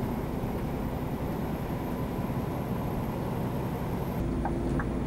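Steady low drone of a Scania R440's 13-litre engine, together with tyre and road noise, heard inside the truck's cab at motorway cruising speed. A few faint light ticks come in near the end.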